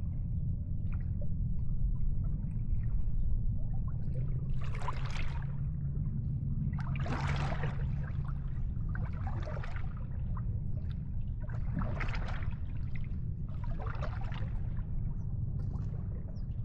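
Small sea waves splashing and washing in, one every two to three seconds, over a steady low rumble.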